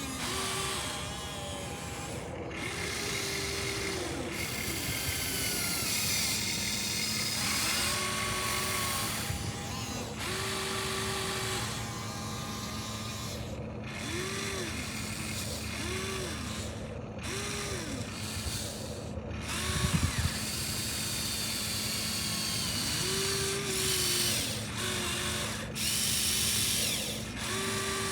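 Small electric gear motors of a radio-controlled construction model whirring in repeated short bursts. Each burst rises in pitch as the motor spins up and falls as it stops, over a steady gear whirr, with a brief clatter about two-thirds of the way through.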